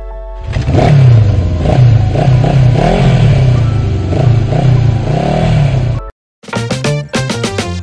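An engine revving over and over, its pitch swinging up and down, as the sound of a logo sting. It cuts off suddenly about six seconds in, and music with keyboard notes takes over.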